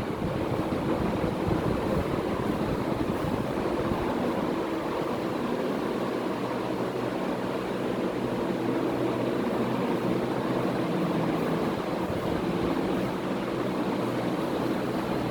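56-inch Vision Super ceiling fan running steadily: an even rush of moving air with a faint low hum.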